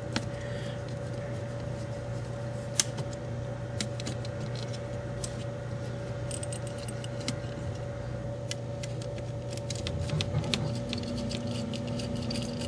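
Scattered small metallic clicks and clinks from a Torx screwdriver loosening the tiny screws on a laptop video card's heatsink, more frequent in the second half, over a steady low hum.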